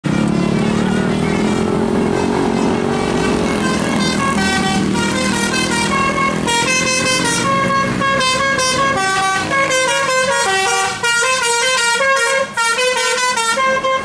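A tour bus's telolet multi-tone horn playing a quick melody of short stepping notes, starting about four seconds in and growing busier after about six seconds. Before it, engine noise from passing motorcycles and traffic.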